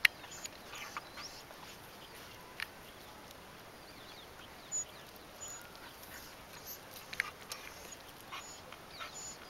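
Street dogs sniffing and moving about close to the microphone on asphalt: scattered soft snuffles and clicks over a low background, with one sharp click at the start and a few faint high chirps.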